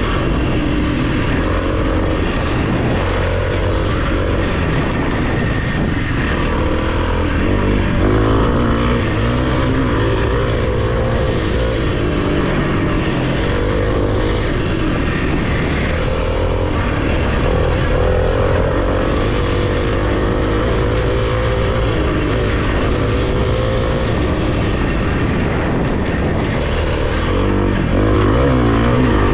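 Kawasaki KLX300 dual-sport motorcycle's single-cylinder four-stroke engine running under way on dirt single track, its revs rising and falling again and again as the throttle is worked.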